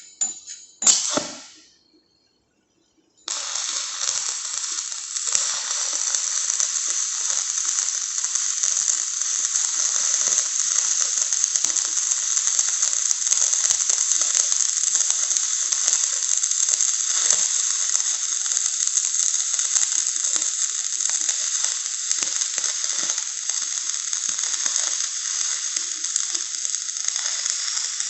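Electric arc welding: a few sharp taps in the first second, a short silence, then about three seconds in the arc strikes and burns with a steady crackling sizzle.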